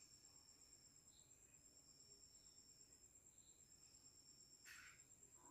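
Near silence with crickets chirping faintly: one steady high trill and a second that starts and stops, with a faint brief rustle near the end.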